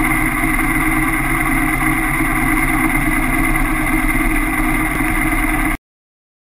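Kawasaki KLR650 single-cylinder engine idling steadily, heard up close; the sound cuts off suddenly near the end.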